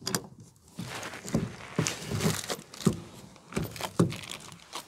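Adjustable wrenches clicking and knocking against the brass hose fitting and the fuel nozzle while the fitting is tightened, a series of irregular short knocks and clicks.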